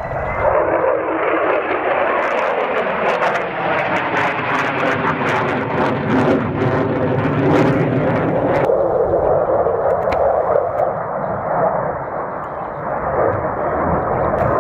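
Military jet aircraft flying past, their engines making loud, continuous jet noise. The tone sweeps slowly as they pass, with crackles through the first half. About nine seconds in the upper hiss drops away and the noise continues duller.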